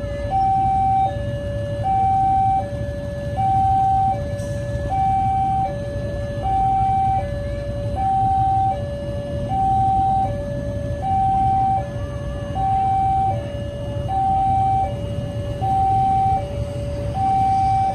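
Railway level-crossing warning alarm sounding as a train approaches: an electronic two-tone signal that alternates evenly between a higher and a lower tone, about one high-low pair every second and a half, over a steady low rumble.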